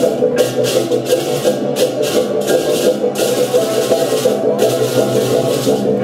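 Balinese gamelan music: a dense, steady mesh of ringing metal tones with repeated bursts of bright, hissing clash above it.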